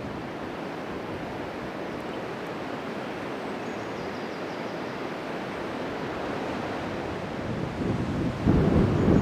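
Steady rushing outdoor noise with wind buffeting the microphone, the buffeting heaviest in gusts near the end.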